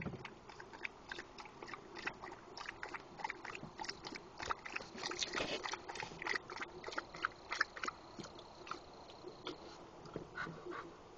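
A dog chewing and mouthing: irregular, quiet clicks and crunches.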